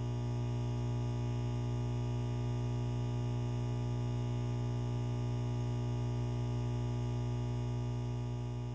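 Sustained ambient drone music: one steady low tone with a stack of fainter, unchanging overtones above it, beginning to fade out near the end.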